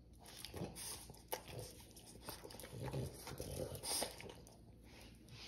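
Boston terrier making short, low-pitched grumbling vocal sounds while eagerly begging for food, with a couple of sharp clicks.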